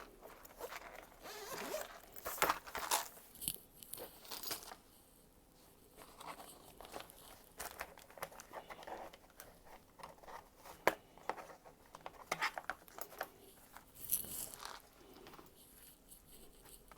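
Scattered clicks, scrapes and crinkles of hands and small tools working inside the opened plastic-and-metal case of a Dell Inspiron 13 7000 laptop, in short irregular bursts with a few quieter stretches.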